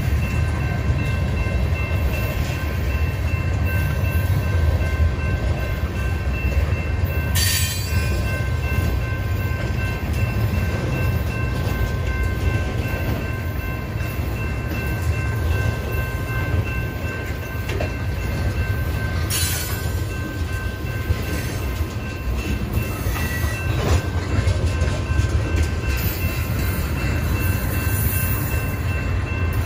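Freight train of tank cars rolling past: a steady low rumble of steel wheels on rail, with faint steady high tones over it. Two short sharp high noises cut in, about seven and a half seconds in and again near twenty seconds.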